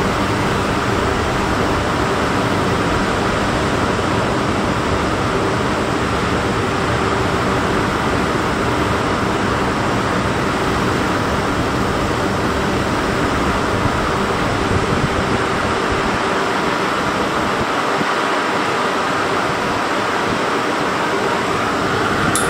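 Steady whirr of a standing E3-series Shinkansen set's onboard cooling blowers and air-conditioning units, an even rushing noise with a faint steady hum underneath.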